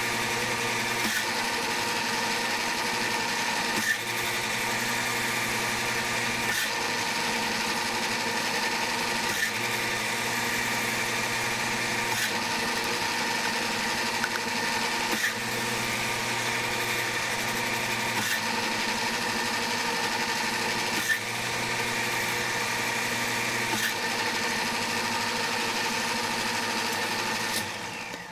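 Martin metal lathe running under power while thread cutting, its leadscrew and half nuts driving the carriage. The motor is switched between forward and reverse every few seconds, each change marked by a click and a shift in the hum. The lathe winds down and stops near the end.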